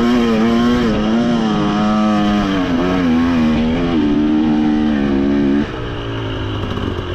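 KTM 300 XC two-stroke dirt bike engine running under throttle, its pitch rising and falling as the throttle is worked. About five and a half seconds in it drops suddenly to a lower, steadier note as the throttle is rolled off.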